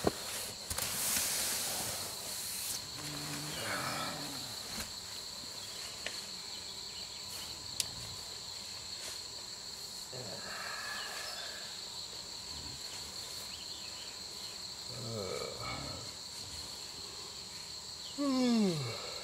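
Night insects, crickets or katydids, chirring steadily at a high pitch. Near the end there is a person's low groan that falls in pitch, and a few soft rustles come earlier.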